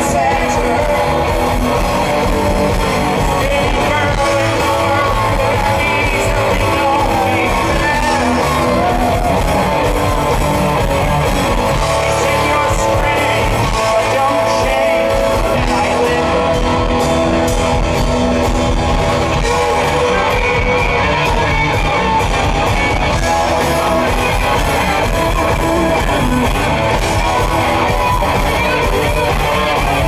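Live rock band playing loud: electric guitars, bass and drums, with a man singing lead.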